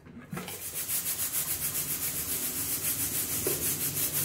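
Stovetop pressure cooker's weighted whistle valve letting out steam in a rapid, even hissing pulse, about six puffs a second, as pressure builds toward the whistle.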